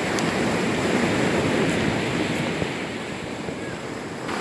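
Sea waves breaking and washing in on the shore, the surf swelling over the first second or two and then fading.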